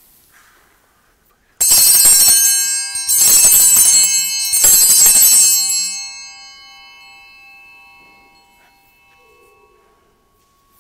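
Altar bells (Sanctus bells) shaken three times in quick succession, bright high ringing, then fading away over a few seconds. They are rung to mark the elevation of the chalice at the consecration.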